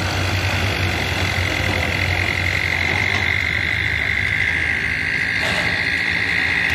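Sonalika DI 50 tractor's diesel engine running steadily, with a steady high-pitched trill over it that grows louder from about two seconds in.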